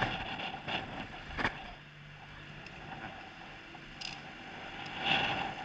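Bicycle rolling across a ferry's steel ramp onto the shore ramp, with a few sharp clanks as the wheels cross the plate joints, over a low engine hum.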